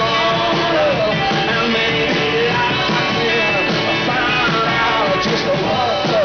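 Live rock band playing a song, in a stretch between sung lines, with a melody line that slides between notes over the guitars and drums.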